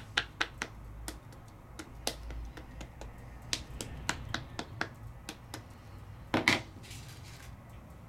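Light, irregular clicks and taps as rubber-stamping tools and watercolour paper are handled on a craft table, with one louder knock about six and a half seconds in.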